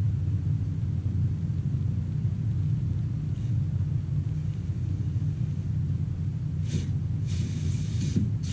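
A steady low machine rumble throughout, with aerosol AC flush hissing in short spurts near the end as solvent is sprayed through a hose into the evaporator of an automotive AC system.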